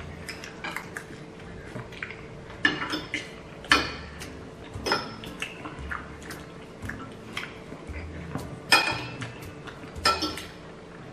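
Metal forks and spoons clinking and scraping on ceramic plates while eating, in irregular light clicks.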